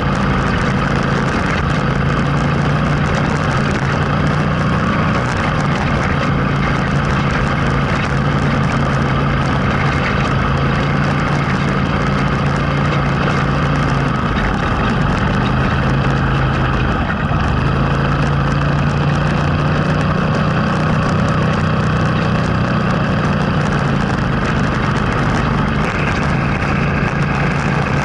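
Vehicle engine running steadily while driving along a gravel forest track, its note dropping away briefly about halfway through before picking up again.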